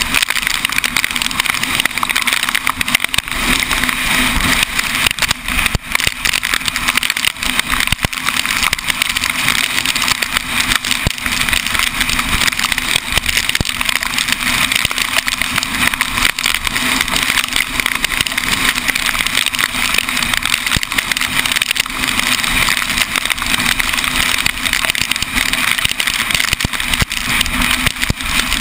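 Loud, steady rush of wind over a camera mounted outside a moving vehicle, with a low drone from the vehicle and its tyres underneath and frequent short buffeting thumps.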